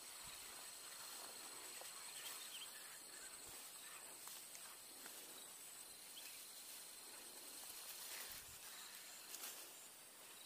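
Faint outdoor ambience: a steady, thin, high-pitched insect drone, with a few faint ticks.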